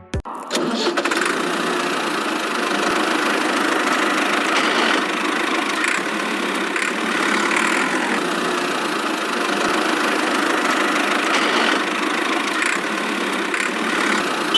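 A small motor running steadily, with a busy mechanical buzz and no deep low end.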